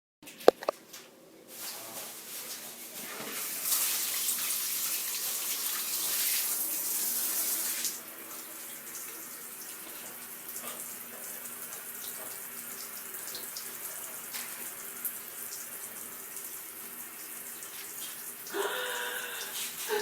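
Shower head spraying water: a sharp click about half a second in, then a hiss that grows, runs loudest for a few seconds, and drops to a quieter steady spray after about eight seconds.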